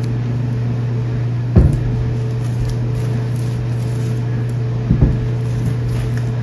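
Steady low hum of a household machine running, with two knocks, about a second and a half in and again near five seconds in.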